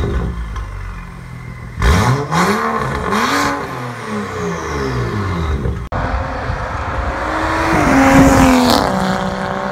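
BMW 335i xDrive's turbocharged inline-six through an Armytrix valved exhaust. It settles near idle, then gives two sharp throttle blips, each rising and falling, about two seconds in. After that the car accelerates hard past, the engine pitch climbing, then dropping abruptly near the end and carrying on lower.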